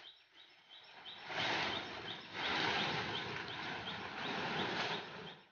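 Plastic tarpaulin rustling in uneven swells as it is dragged off a parked jeep, with a short high chirp repeating about three times a second in the background.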